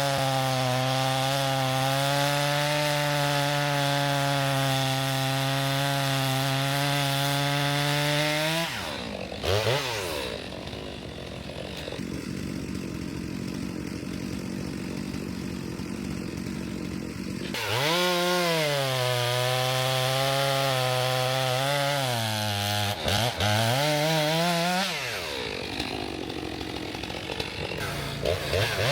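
Stihl MS462 two-stroke chainsaw bucking a log, running at a steady high pitch under load in the cut. It drops back to a lower idle for several seconds in the middle. It then goes back into the wood with its pitch sagging and recovering, drops off again, and revs up once more near the end.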